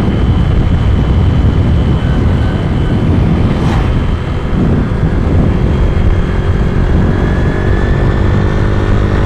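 Motorcycle riding at road speed, heard from a rider-worn camera: a steady wind rush on the microphone over the engine's drone, with the engine note coming through more clearly in the second half. A brief knock sounds a little under four seconds in.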